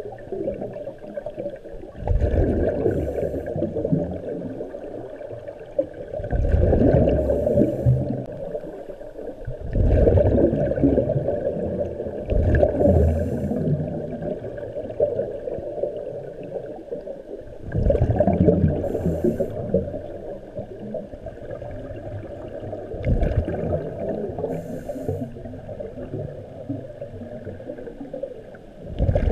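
Muffled underwater sound heard through a GoPro's waterproof housing: a swimmer's breathing and exhaled bubbles, surging every four to six seconds over a steady low wash of water.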